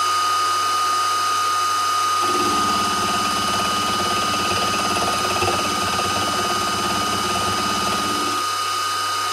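BF25 milling machine running with a steady high whine, its end mill cutting metal from about two seconds in with a rapid, rough chatter that stops about a second before the end while the spindle keeps running.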